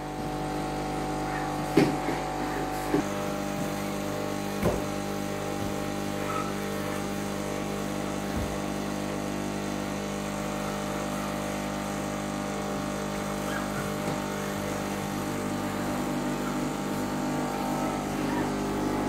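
Carpet and upholstery cleaning machine running with a steady motor drone, with a few short knocks in the first half.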